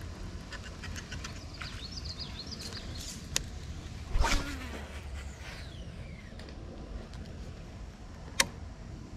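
A cast with a Daiwa Z2020 baitcasting reel: a sudden swish about four seconds in, then the spool whining as line pays out, falling in pitch as it slows, and a sharp click near the end.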